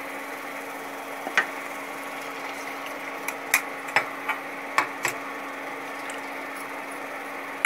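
A wooden spatula knocking and scraping against an iron kadhai while masala is stirred: a handful of sharp, irregular clicks over a steady low hiss.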